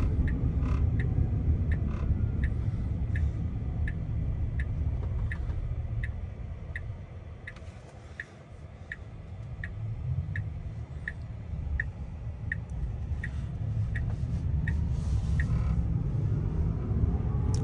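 Tesla Cybertruck turn signal ticking steadily, about three ticks every two seconds, over low road rumble inside the cabin during a right turn. The ticking stops a couple of seconds before the end. The rumble dies down about halfway through and builds again as the truck gathers speed.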